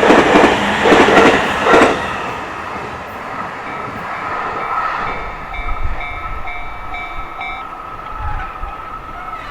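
The wheels of a passing train clatter over the rail joints at a level crossing in loud, even beats about two a second, dying away after about two seconds. Then the crossing's warning bell rings on in a steady pulse of about two strokes a second.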